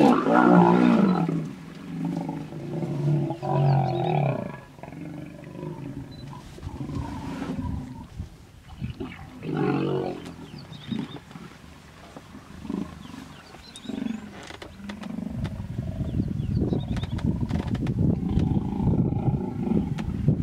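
Hippos roaring and bellowing in a fight in the water, loudest right at the start where two of them clash in a burst of splashing. Further roaring calls follow every few seconds, growing fainter, and a steady low rumble takes over in the last few seconds.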